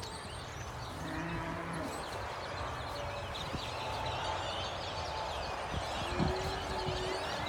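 Birds chirping steadily outdoors among cattle, with a faint low drawn-out call from about six seconds in and a few soft thuds.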